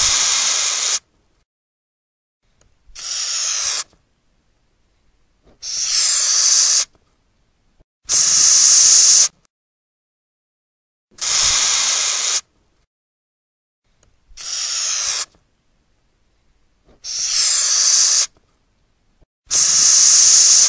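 Madagascar hissing cockroach hissing, forcing air out through its breathing pores. Eight separate loud, airy hisses of about a second each, one every two to three seconds, with silence between them.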